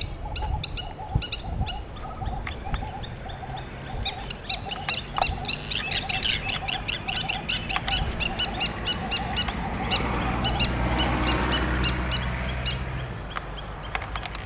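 Wild birds calling: a fast run of short, high chirps repeated several times a second over a lower, steady pulsing call. A low drone swells in about ten seconds in and fades before the end.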